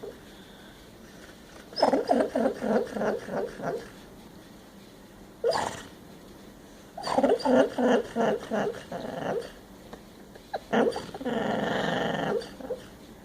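Sleeping dog snorting and making muffled noises while dreaming. The sounds come in bouts of quick repeated pulses, with one short sharp snort in between and a longer, steadier sound near the end.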